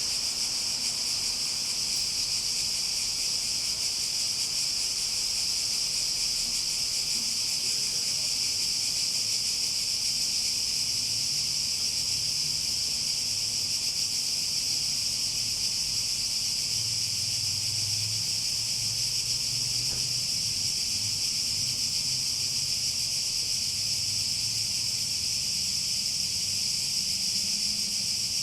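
Chorus of cicadas buzzing in a steady, unbroken high drone.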